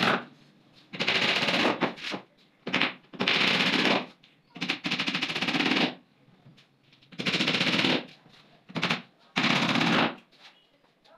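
Steel claw hammer driving nails into laminated particleboard panels of a wardrobe carcass, struck in quick runs of blows that come in bursts of a second or less, with short pauses between.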